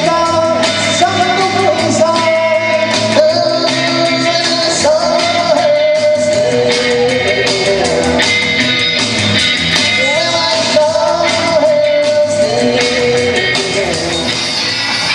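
Rock and roll song with a singing voice, played loud and continuously.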